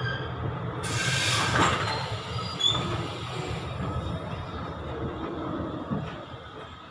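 Passenger train coaches rolling slowly on the track, heard from the open doorway: a steady low rumble with short high-pitched wheel squeals. A burst of hiss comes about a second in.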